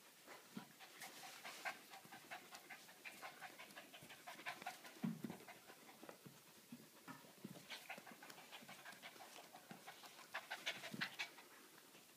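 Dog panting quickly and unevenly during play, with a couple of soft thumps, about five seconds in and again near the end.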